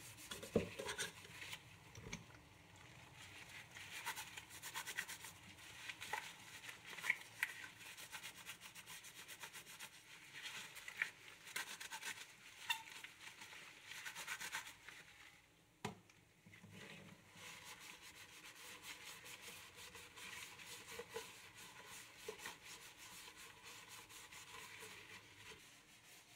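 Sponge scrubbing a stainless steel sink and its drain strainer by gloved hand: a run of short scratchy rubbing strokes, with a sharp click partway through.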